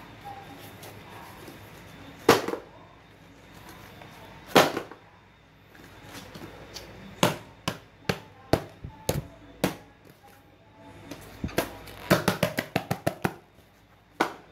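Small cardboard shipping box with a packed pitcher plant inside being thrown and shaken to test the packing: two loud knocks a couple of seconds apart, a scatter of lighter knocks, then a fast rattling run of knocks near the end.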